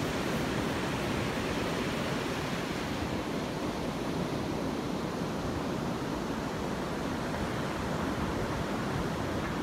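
Ocean surf washing onto a beach, a steady rushing noise.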